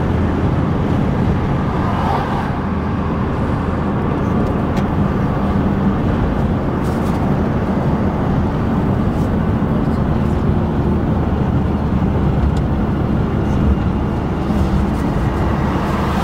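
Steady engine and road noise of a car being driven.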